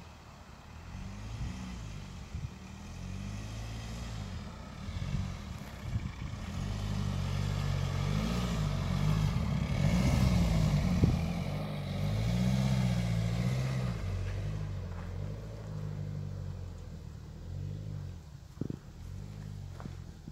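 BMW X1 E84 xDrive's four-cylinder diesel engine working under load as the SUV drives through soft sand. The revs rise and fall. It gets louder as the car draws near, is loudest as it passes about halfway through, then fades as it climbs away up a hill.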